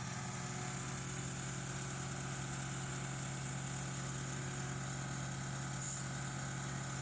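A machine engine idling steadily with a constant low hum that does not change in speed.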